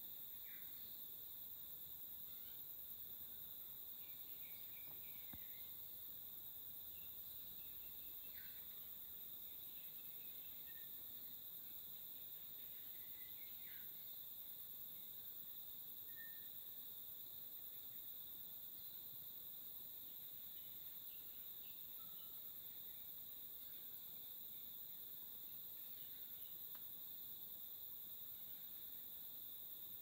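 A steady, high-pitched chorus of insects in native forest, unbroken throughout. A few short bird chirps are scattered over it.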